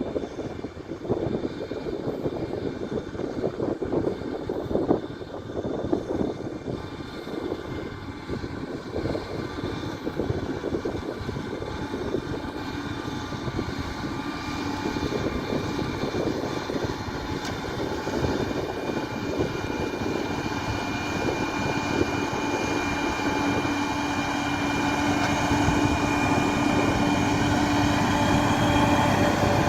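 Komatsu D41P bulldozer's diesel engine running as the machine works, with irregular knocking and rattling in the first half. It grows gradually louder and settles into a steady hum in the last third.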